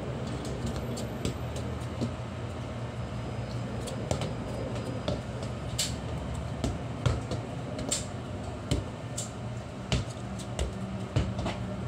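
A football being kicked and bouncing on a paved yard: short sharp thuds at irregular intervals, more frequent in the second half, over a steady low background hum.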